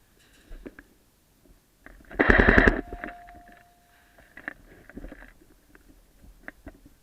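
Airsoft gun firing one rapid full-auto burst of about half a second, a quick even string of shots, about two seconds in; fainter scattered clicks and knocks around it.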